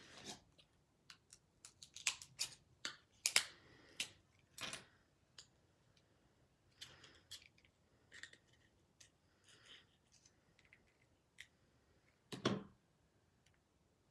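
Small parts of a dismantled iPhone 3GS being handled and set down on a wooden table: scattered light clicks and taps, thickest in the first five seconds, with one heavier knock near the end.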